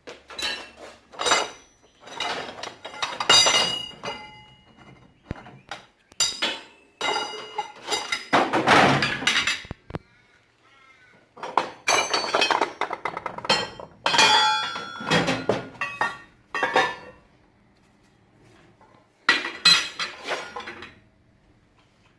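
Steel pieces clanking and clinking against each other in irregular clusters of knocks, several with a short metallic ring.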